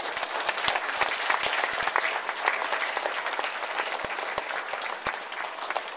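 Audience applauding: dense clapping from many hands.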